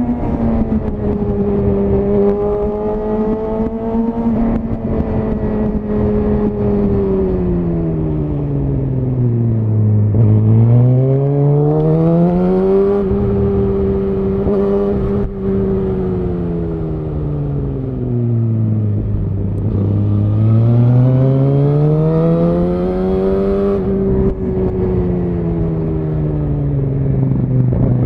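Suzuki GSX-R1000R's inline-four running through a Yoshimura R-11 SQ exhaust while riding. Its revs sink and climb back up three times, each dip a smooth fall followed by a rise as the throttle is opened again.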